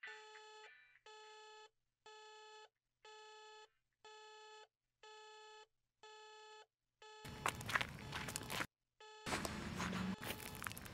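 Electronic alarm beeping, one steady beep about once a second. From about seven seconds in, a louder rush of rustling noise covers it.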